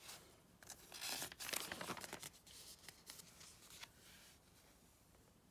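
Magazine page being turned by hand: paper rustling and sliding for about two seconds, then a few faint, soft paper ticks as the page settles.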